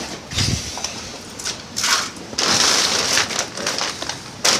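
Crunching and rustling in irregular bursts: footsteps through dry, fallen leaves and the handling of a plastic tarp.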